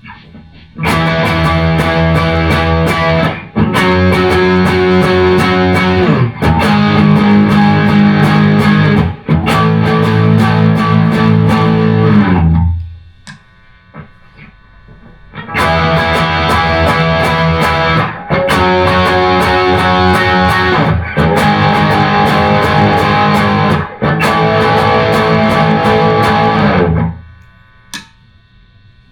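Electric guitar, an Epiphone Les Paul, playing distorted chords in two phrases of about ten seconds each, with a pause of a few seconds between them. The chord changes come roughly every three seconds.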